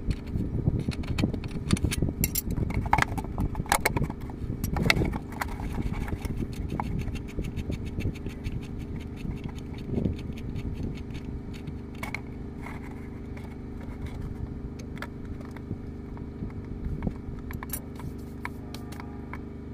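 Metal clinks and scrapes of a spanner and hands on the steel gearbox filter housing of a Kirovets K-704 tractor as it is unscrewed to drain the gearbox oil. The clinks are busiest in the first several seconds and grow sparse after that, over a steady low engine hum.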